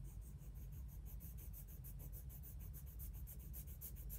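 Coloured pencil shading on paper in quick back-and-forth strokes, about seven a second: a faint, scratchy rub of the pencil lead on the paper.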